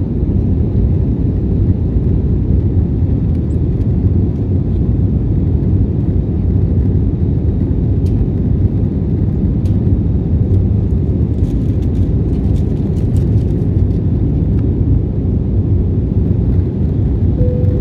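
Airbus A320 jet engines and airflow making a steady low rumble, with no rise or fall in pitch. A short steady tone sounds right at the end.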